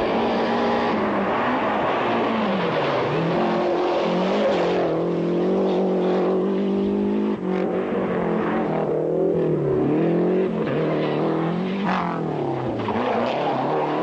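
Rally car engine running hard, its pitch falling and climbing again several times over.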